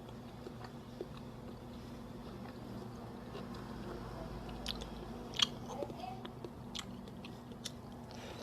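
Biting and chewing crunchy flour-coated fried chicken close to the microphone: scattered sharp crunches, coming thickest after about halfway, over a steady low background hum.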